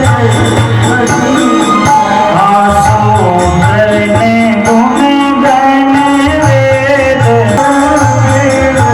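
Devotional bhajan music: a voice singing a bending melodic line over a steady hand-drum beat.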